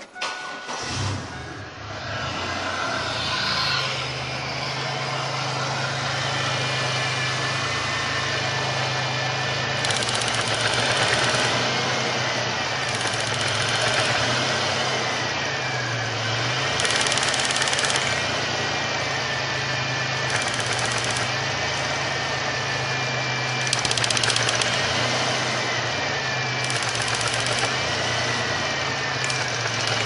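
Supercharged 3.8-litre V6 of a 1999 Pontiac Grand Prix starting about half a second in and then running steadily at idle, with a wavering whine above the engine note. The engine has the misfire that the owner puts down to a bad ignition coil.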